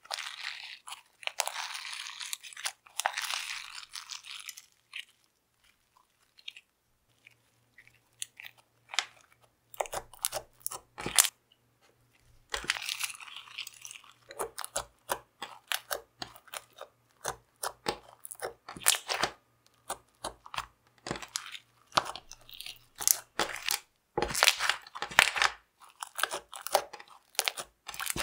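Homemade borax slime made from peel-off face mask being kneaded, squeezed and stretched by hand: irregular sticky clicks, crackles and squishes, with a brief lull a few seconds in.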